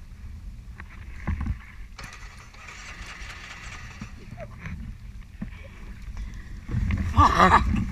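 Muddy floodwater sloshing around a sunken ATV over a low rumble, with a few small knocks. Near the end a person's voice calls out loudly.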